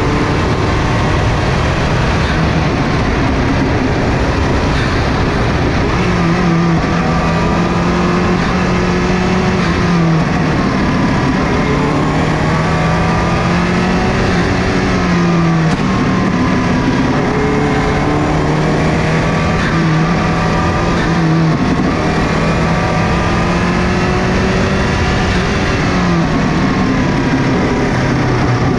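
Subaru GC8 Impreza rally car's turbocharged flat-four engine pulling hard on a tarmac stage. Its note climbs under acceleration and drops sharply several times as the driver shifts or lifts for bends, over steady road and wind noise.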